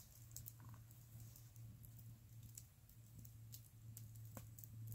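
Near silence with faint scattered crackles and ticks from a small wood campfire, one sharper tick near the end, over a low steady hum.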